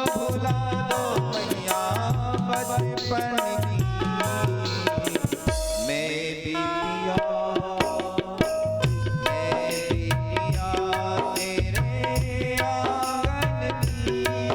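Instrumental passage of a Hindi devotional song: a melody instrument playing held, stepping notes over a steady tabla rhythm.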